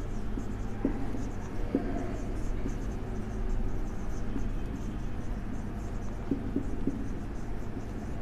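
Marker pen writing on a whiteboard: scratchy strokes with short squeaks now and then, over a steady low background hum.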